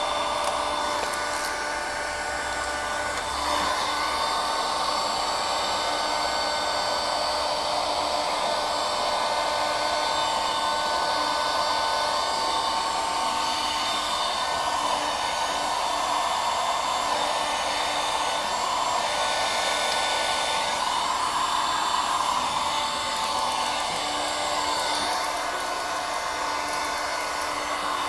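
Handheld electric heat gun running steadily: a rush of blown air with a motor whine. It is heating vinyl wrap film at a wheel arch to soften it so it can be stretched around the curve.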